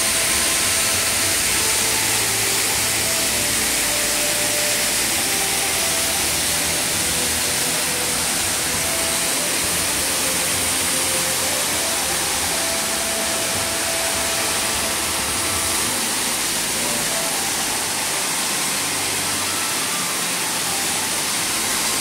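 Waterfall: many streams of water falling from a cliff onto rocks and into a pool, a steady rushing hiss.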